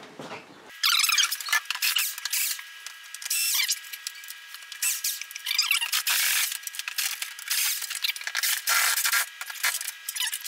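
Cordless drill-driver backing screws out of a metal microwave wall-mounting bracket, running in several short bursts.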